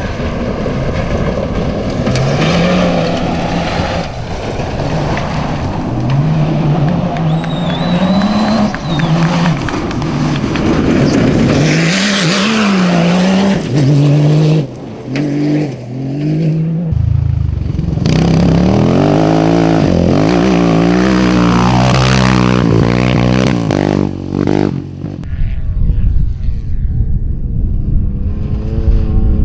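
Rally-raid cars' engines revving hard at speed on a gravel stage, the pitch climbing and dropping again and again as they shift gears, with tyre and gravel noise underneath. Several cars are heard in turn.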